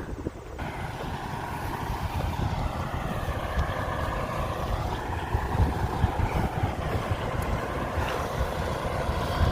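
Wind buffeting the microphone over a steady hum of vehicle traffic from the nearby interstate and the busy rest-area lot.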